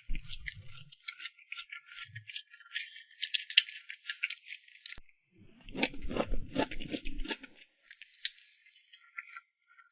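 Close-miked eating of cream cake: dense sticky, crackly clicks of mouth and cream, then a heavier burst of chewing and squishing about six to seven seconds in.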